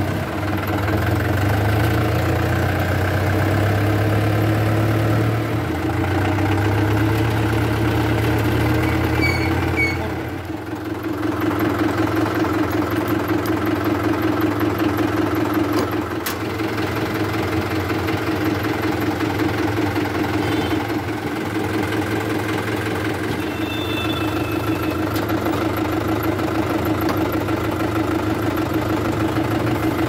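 Tractor diesel engine running while the tractor drives along. About ten seconds in the sound breaks and changes to the engine idling steadily.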